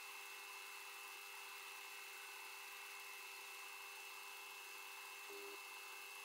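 Metal lathe running, turning a steel axle shaft between centers while the tool takes a cut: a faint, steady whine with a constant high tone, briefly changing about five seconds in.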